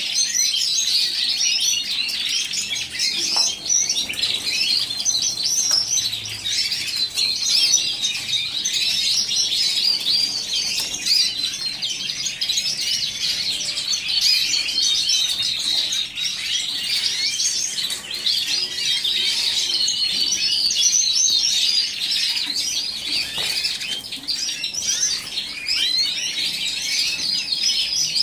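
Many caged domestic canaries singing and chirping at once: a dense, unbroken chorus of high, quick trills and twitters.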